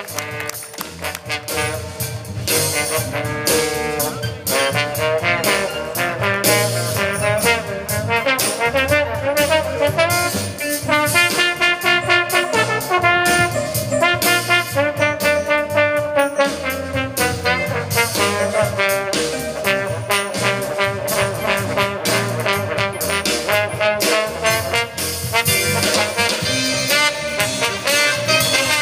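A jazz ensemble playing with a full brass section carrying the melody over a steady beat.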